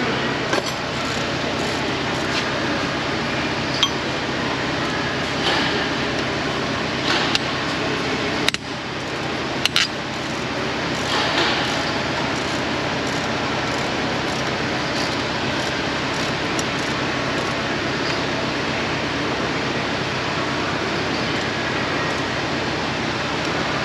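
Metal hand tools clinking now and then against the truck diesel engine while the alternator is being unbolted, a few sharp clinks in the first half. Under it, a steady background hum throughout.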